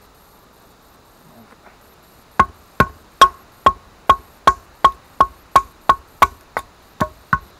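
Wooden baton striking the spine of a Mora Bushcraft SRT stainless-steel knife, driving it down through a small stick to split kindling. About fourteen quick knocks, two or three a second, start a couple of seconds in, each with a short ring.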